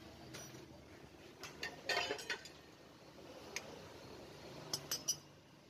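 Steel engine parts clinking and tapping as a Honda TMX125's kick-starter spindle assembly, with its spring, collar and washer, is fitted into the crankcase. Scattered light clicks, a cluster about two seconds in and a few more near the end.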